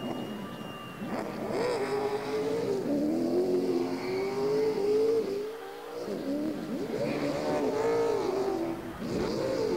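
Stock car engines revving, their pitch rising and falling several times in quick swings.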